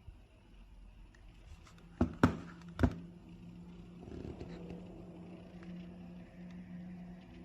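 Phone in a hard plastic case being handled: three sharp clicks within about a second, starting about two seconds in, then softer rubbing and rattling over a steady low hum.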